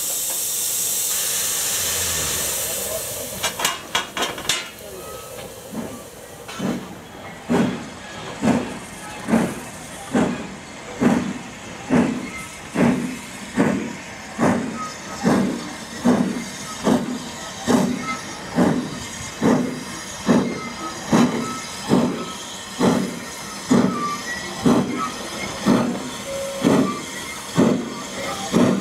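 Steam saddle-tank locomotive pulling away with its train: a loud hiss of steam for the first few seconds and a few sharp clanks, then a steady run of slow, evenly spaced exhaust chuffs, about one beat every 0.8 seconds, as it works away up the gradient.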